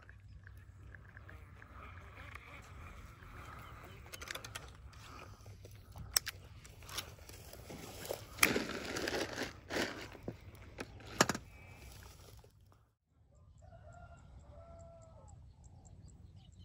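Rustling with a few sharp knocks, loudest about eight to eleven seconds in; after a brief drop-out, a rooster crows once about fourteen seconds in.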